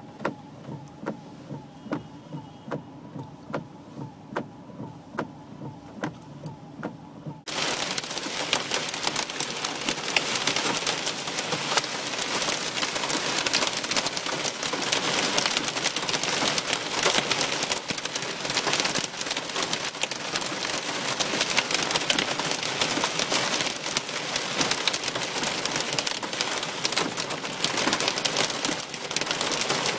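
Hail and heavy rain pelting a car's roof and windshield, heard from inside the car: a dense, loud drumming of small impacts that starts suddenly about seven seconds in, as the car leaves the shelter of an underpass. Before that, sharp ticks about one and a half times a second, like a car's indicator clicking.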